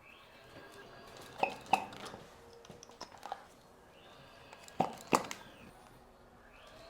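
Joints cracking during a chiropractic adjustment: two quick pairs of sharp pops, about a second and a half in and again near five seconds, with fainter clicks between them.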